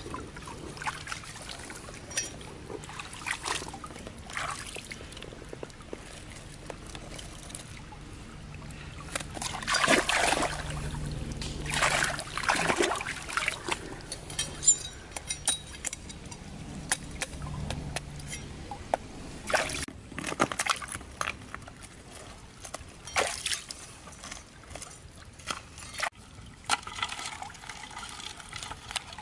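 Shallow stream water trickling and sloshing, with scattered sharp clacks of rocks and a steel knife knocking against stones as a rock pile in the water is pried apart. Louder splashing comes about a third of the way through and again, more briefly, about two-thirds of the way through.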